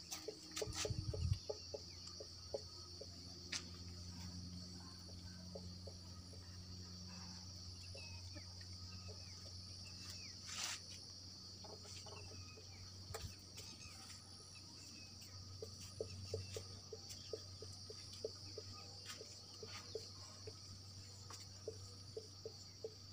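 Marker pen squeaking and tapping in short strokes on a whiteboard as words are written, over a steady high-pitched drone of insects.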